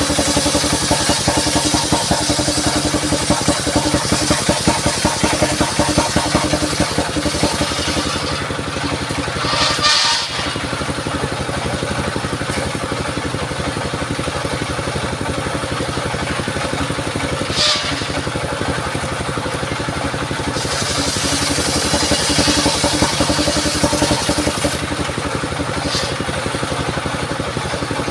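Engine-driven portable circular sawmill running steadily, its blade cutting mahogany, with the cutting hiss heavier in the first third and again past the middle. A brief high whine comes about ten seconds in and again near eighteen seconds.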